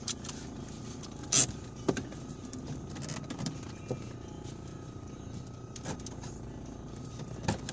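A vehicle riding on a wet road: a steady low hum of engine and tyres, broken by a few sharp knocks and taps, the loudest about a second and a half in.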